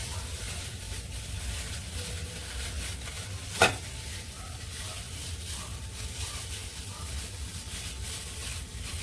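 Plastic bag rustling and crinkling as a marinated chicken is worked out of it by hand, with a low steady hum underneath. One sharp knock about three and a half seconds in.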